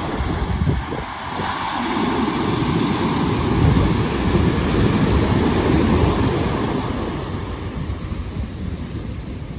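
Ocean surf washing up on the beach, with wind buffeting the microphone; the rush of a wave swells about two seconds in and eases off toward the end.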